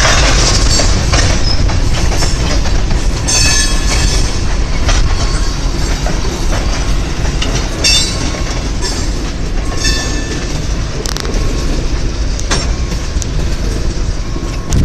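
A cut of freight tank cars rolling slowly past, their wheels clicking and clanking over the rail joints over a steady low rumble. Brief high squeals come from the wheels about four, eight and ten seconds in.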